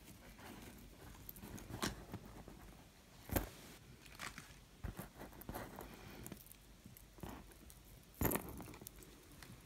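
A metal ball-chain necklace clinking as it is tipped out of a sheer fabric pouch onto a table, with light handling rustles and a few sharp clicks.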